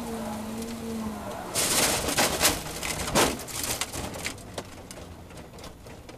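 Open-cockpit race car's engine note falling as it slows, dying away about a second in. Then a loud burst of crackling and thudding as the car slides off the track across grass, with dirt and turf thrown against the bodywork, thinning into scattered taps and fading.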